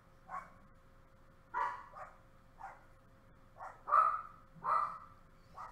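A dog barking repeatedly: short separate barks every half second to a second, loudest about four and five seconds in, over a faint steady hum.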